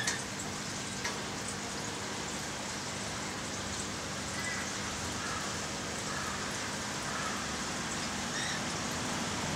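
Steady, rain-like hiss of trickling water over a low steady hum, with a light click about a second in and a few faint short chirps in the middle.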